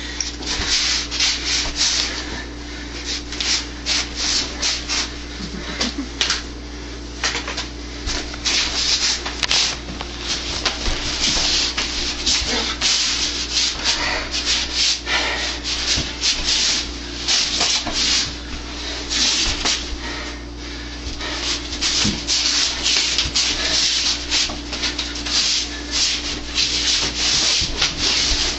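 Rapid, irregular brushing and rubbing of forearms and shirt sleeves against each other in a sticky-hands (chi sao) drill, several strokes a second.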